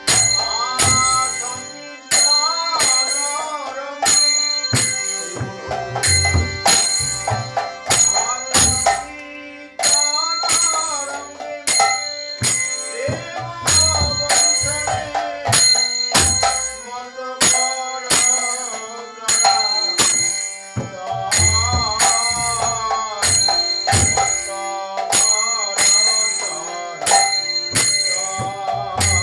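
Bengali kirtan music: harmonium chords under a singing voice, small hand cymbals ringing about twice a second, and deep strokes on a khol drum.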